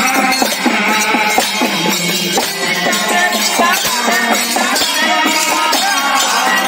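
Devotional Mahima Alekha bhajan: voices singing a melodic chant into microphones, over steady jingling hand percussion.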